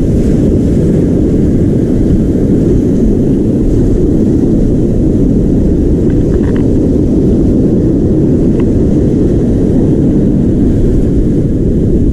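Strong wind buffeting an action camera's microphone: a steady, loud low rumble that covers the sound of the surf.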